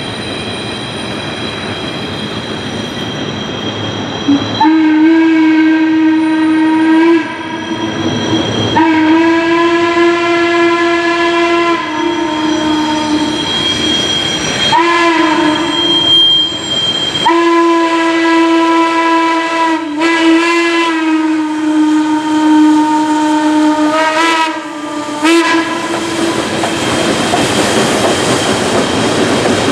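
Steam locomotive 1309, a 2-6-6-2 Mallet, sounding its steam whistle over the rumble of the moving train. The whistle comes in a string of long blasts with short breaks, then two quick toots near the end.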